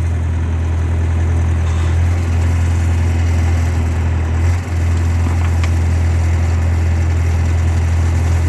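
Skid steer loader engine running steadily with a deep, even hum, dipping briefly about four and a half seconds in.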